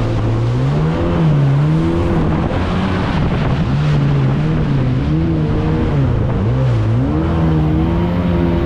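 Jet ski engine running under load, its pitch rising and falling over and over as the throttle changes, with rushing wind and water underneath.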